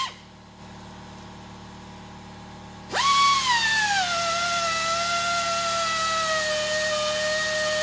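Air-powered 3/8-inch belt sander grinding down a steel weld. Its high whine stops at once, and after about three quieter seconds it starts up again sharply. The whine then sinks in pitch and settles lower as the belt bites into the metal under load.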